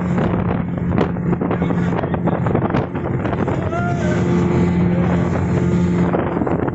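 Speedboat engine running at a steady drone, with wind buffeting the microphone and water rushing past the hull.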